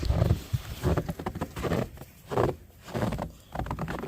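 Uneven crunching steps through deep snow, a short burst every half second to a second with brief pauses between.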